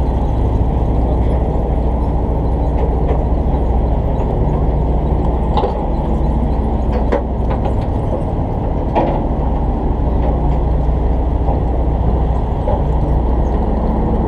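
Fishing charter boat's engine running steadily, a loud low hum, with a few light clicks over it.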